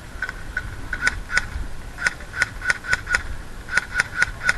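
Airsoft gunfire: a string of sharp shots at irregular spacing, about three a second, some coming in quick pairs.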